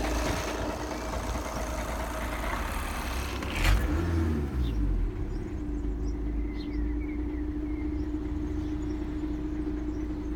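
2011 VW Passat B7 2.0 TDI diesel running at idle, with the noise that the owner puts down to the dual-mass flywheel. A single loud thump comes a little under four seconds in, after which the engine sounds duller and steadier.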